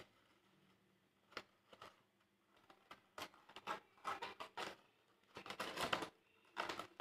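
Faint rustling and light tapping of folded paper envelopes being handled, a scatter of soft clicks and scrapes that gets busier from about three seconds in.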